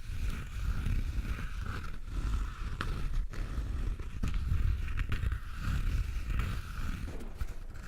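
Close-miked ASMR trigger sounds: continuous scratchy rubbing with a dull rumble, broken by a few sharp taps around the middle.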